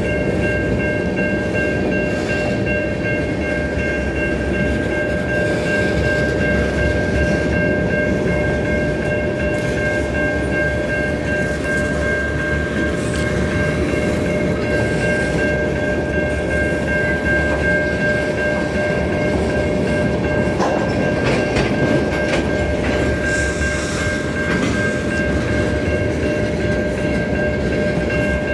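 Freight train of tank cars rolling past at a grade crossing: a steady low rumble of wheels on rail, with a steady high ringing held over it and a few sharp clanks a little past two-thirds of the way through.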